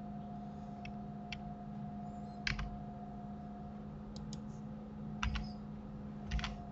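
Scattered clicks of a computer keyboard and mouse, some in quick pairs, over a steady low electrical hum.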